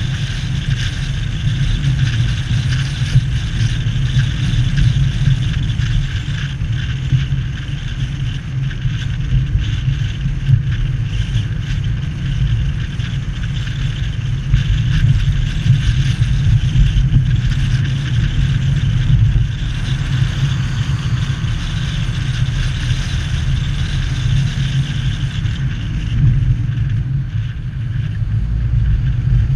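Steady low rumble of a car driving along a city street, a mix of engine and tyre-on-road noise.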